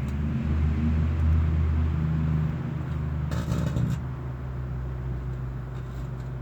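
Microwave oven running with a steady low hum, with a short crackling burst about three seconds in.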